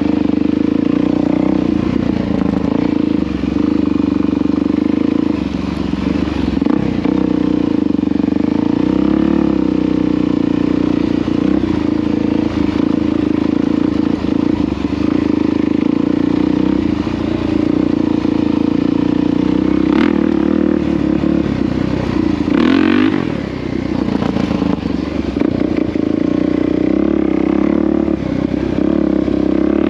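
Small vehicle engine running at a steady, near-constant speed while being ridden, easing off briefly about three-quarters of the way through.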